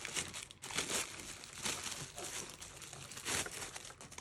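Product packaging being opened by hand: wrapping crinkling and rustling in irregular bursts, with some tearing.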